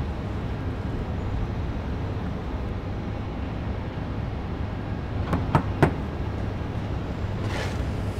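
Steady low outdoor background rumble, like distant traffic. About five and a half seconds in come two sharp clicks close together, and near the end a short whoosh.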